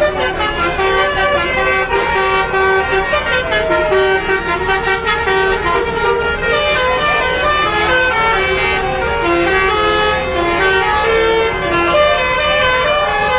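Basuri telolet bus horns playing quick melodies of stepped, held tones, several sounding over one another, above a steady low rumble.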